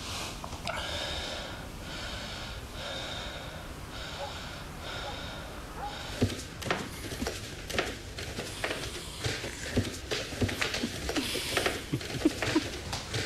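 A person breathing heavily in slow, evenly spaced breaths about a second apart, then a run of irregular sharp knocks and clicks from about halfway in.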